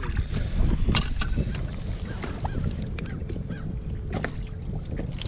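Gusty wind rumbling on the microphone in an open fishing boat, with scattered small clicks and knocks.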